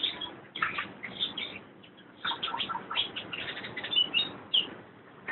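Cucak ijo (green leafbird) chirping in several short bursts of quick high notes with brief gaps between them, as the bird is being charged up to raise its breeding drive before a contest.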